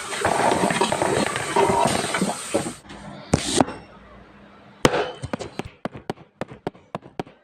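A dense mix of voices and noise that drops away, then a short loud burst, then an irregular run of sharp cracks, about three or four a second.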